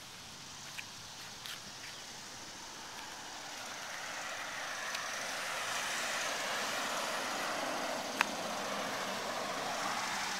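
A motor vehicle's engine and tyre noise swelling over a few seconds as it draws near, then holding steady. A few faint clicks near the start and one sharp click about eight seconds in.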